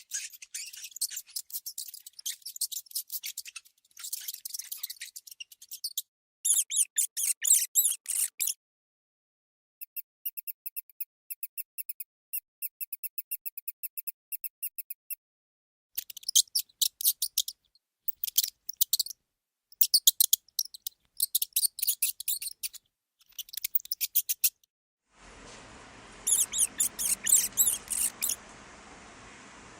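Mice squeaking in rapid, very high-pitched trains, in several separate bouts with short silences between. One bout in the middle is a run of evenly spaced, clear chirps, and near the end the squeaks sit over a steady hiss.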